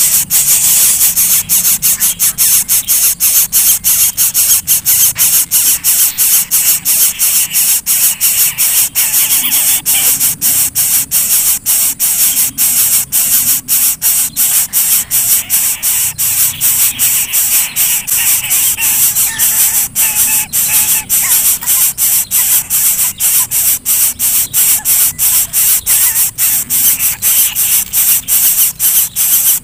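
Greater coucal nestlings begging for food: a loud, high hiss broken into even pulses about three times a second, without a pause.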